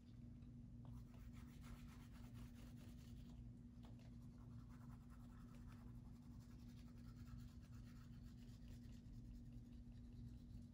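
Faint, rapid scratching strokes of a crayon coloring in on paper, going on without a break, over a low steady hum.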